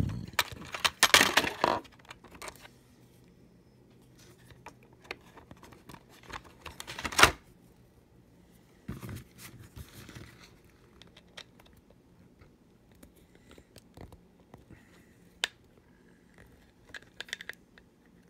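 Handling noises from a small plastic lamp ball being picked up and turned over in the hands: rustling and scraping in the first two seconds, then scattered clicks and taps, with one sharp knock about seven seconds in.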